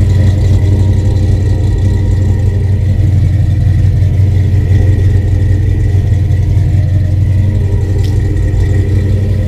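Oldsmobile 442's 455 cubic-inch V8 idling steadily at the exhaust tip, loud, with the uneven beat of its Mondello performance cam plainly audible through the long-tube headers and exhaust.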